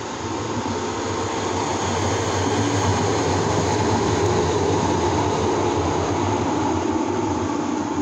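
A vehicle passing out of sight, a wide rushing rumble with a low hum that swells to its loudest about halfway through and then fades.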